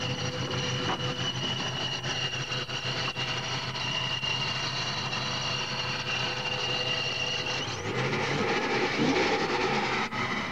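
Supercharged Dodge pickup engine idling with a low pulsing rumble and a steady high whine. About three-quarters of the way through, the whine stops and a louder rushing noise takes over.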